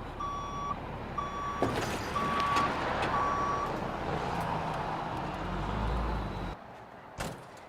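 Truck backing up with its reverse alarm beeping four times, evenly spaced, over the running engine. The engine sound swells near the end, then cuts off suddenly, followed by a single short click.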